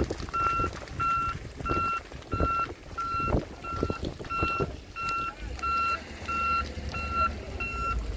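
A work vehicle's reversing alarm beeping steadily, about two beeps a second, over the crackling and popping of burning dry grass and scrub. A low rumble comes in about five and a half seconds in.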